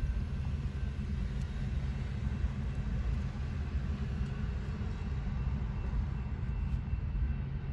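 Loaded coal train's hopper cars rolling past: a steady low rumble of wheels on rail, with road traffic passing close by.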